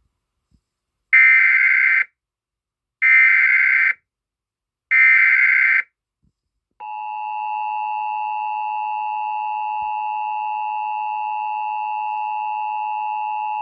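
Emergency Alert System broadcast alert: the SAME header's three data bursts, each a buzzy warble about a second long, then the steady two-tone EAS attention signal. Together they mark the start of an emergency alert, here a flash flood warning.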